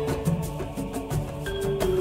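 Music: a soundtrack with long held melody notes over a repeating bass line.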